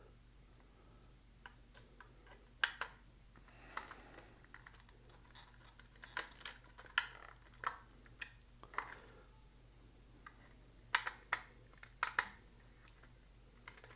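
Irregular light clicks and taps of a small screwdriver working at a stuck screw in a hard plastic toy case, with a few louder clusters of clicks. The screw will not turn; the owner feels its head is a little bit stripped.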